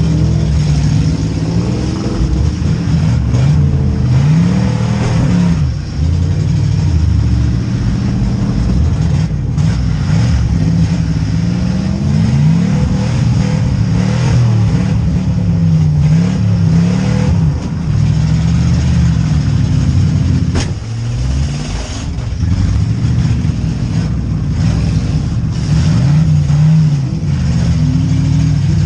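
Several V8 demolition derby car engines revving up and down over one another as the cars accelerate, back up and ram. There is a single sharp bang about two-thirds of the way through.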